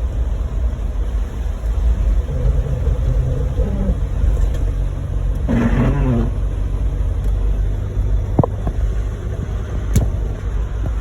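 Car running with a steady low rumble and a recurring wavering pitched sound. The loudest of these comes about six seconds in and is the windshield wiper, which is abnormally loud. Two sharp clicks follow near the end.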